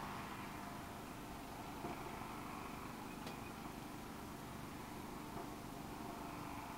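Faint steady background hiss with a low hum, and one small click about three seconds in; no distinct event.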